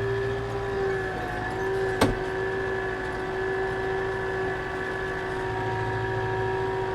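Tractor engine running steadily with a constant whine, towing a grass slitter across a field. A single sharp knock about two seconds in.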